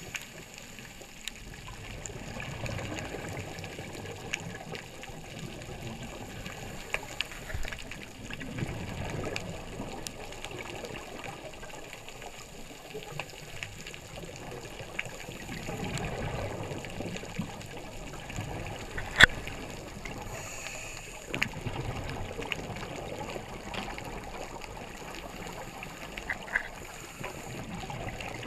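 Scuba divers' exhaled regulator bubbles rushing and gurgling underwater, swelling and fading every several seconds. Scattered sharp clicks and crackles run through it, the loudest about two-thirds of the way through.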